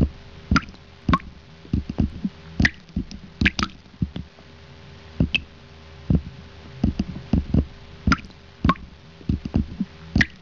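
Water splashing and dripping in irregular small plops and slaps, a few louder than the rest.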